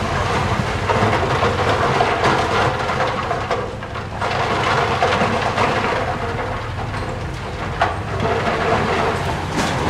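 A heavy machine's diesel engine running under load while loose stone clatters and grinds as it is dumped or pushed, with two sharp stone knocks near the end.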